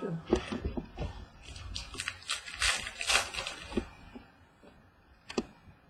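Trading cards being handled: rustling and clicking of cards and wrappers, busiest in the first three and a half seconds, with a single sharp click near the end.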